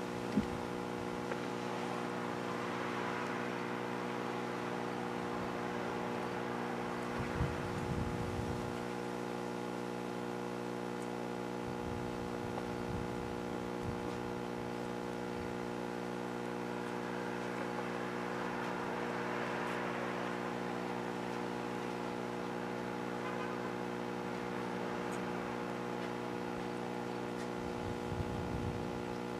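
A steady, even hum made of several fixed tones, with a couple of soft rushing swells and a few low bumps of wind on the microphone.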